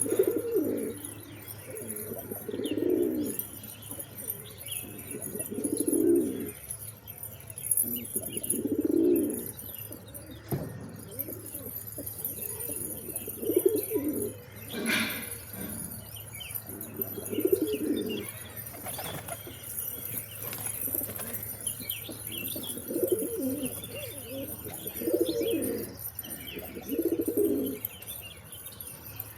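Pigeons cooing: about ten low, rolling coos, each lasting about a second and coming every two to three seconds, with faint higher chirps between them and a couple of short knocks.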